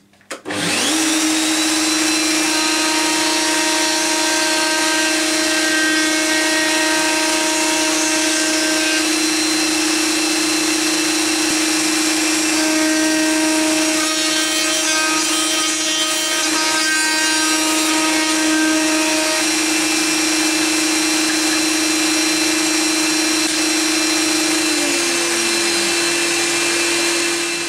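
Table-mounted wood router switched on, spinning up to a steady high whine, and running while the edge of a wooden board is routed to a bevel, with two stretches of cutting. It is switched off near the end and winds down.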